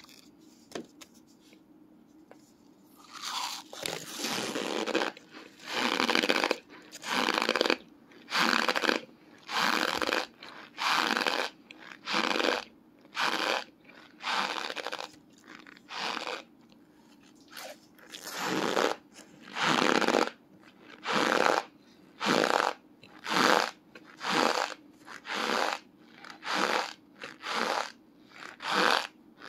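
Chunks of compacted bulk cornstarch crunching over and over, roughly once a second, with a short pause about seventeen seconds in.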